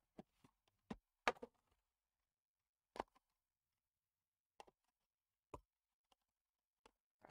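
Sealed cardboard trading-card box handled on a tabletop, giving a scattering of light taps and clicks with quiet between them, the loudest a little over a second in.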